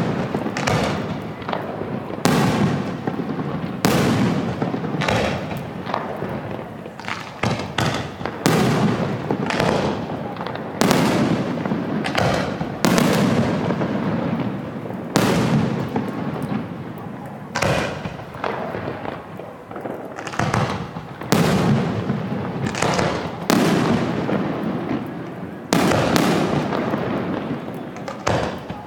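Aerial fireworks shells bursting in quick succession, a sharp bang about every two seconds, each trailing off in a rolling rumble, with clusters of smaller crackling pops in between.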